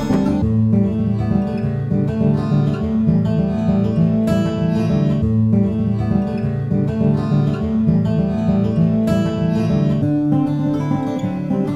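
Background music with acoustic guitar playing, the lower notes changing about ten seconds in.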